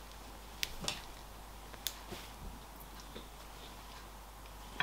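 Shirts on plastic clothes hangers being handled: a few faint scattered clicks of the hangers with soft fabric rustling, a slightly louder click near the end.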